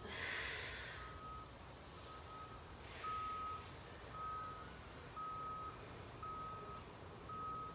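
Vehicle reversing alarm beeping steadily: a single tone about half a second long, repeating about once a second. A short hiss comes in the first second.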